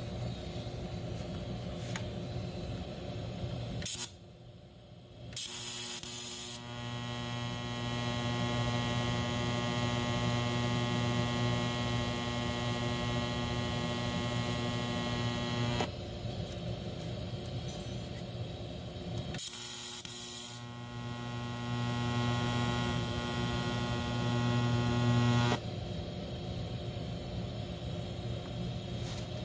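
TIG welder arc running in two steady buzzing passes, about ten seconds and then five seconds long, as weld is built up to fuse a bolt onto a broken bolt. Each pass opens with a short hiss as the arc strikes, and the welder's hum carries on between them.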